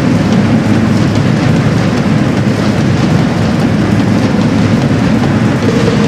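Loud, dense drum percussion, heavy and low, running together into a continuous rumble.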